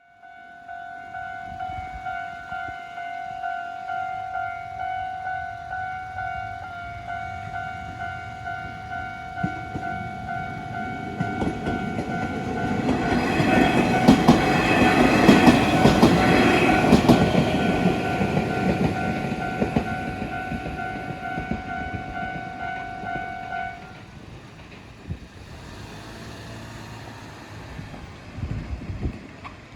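A Japanese level-crossing warning bell ringing its repeated 'kan-kan' while a Nishitetsu Tenjin-Ōmuta Line train passes, its wheels clattering over the rail joints. The train is loudest about halfway through. The bell stops about 24 seconds in.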